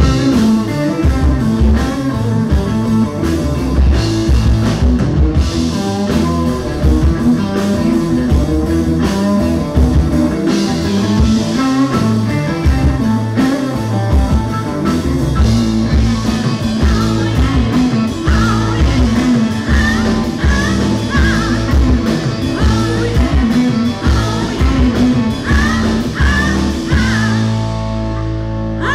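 Live rock band playing loudly: drum kit, electric guitar and bass, with women singing over it from about the middle on. Near the end the drums drop out and a chord is held on.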